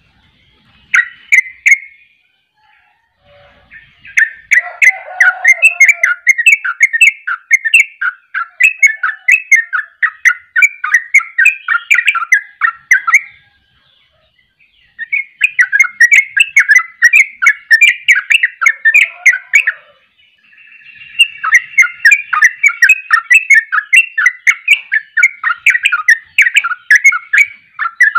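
Yellow-vented bulbul singing its 'ropel' song: long runs of rapid, quick-fire notes with only short pauses between. A brief burst comes about a second in, then three long runs follow.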